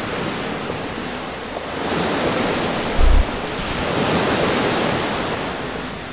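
Heavy surf breaking in a strong sideshore wind of about 18–22 metres per second: a steady rush of waves and wind that swells about two seconds in. About three seconds in, a brief low buffet of wind striking the microphone, the loudest moment.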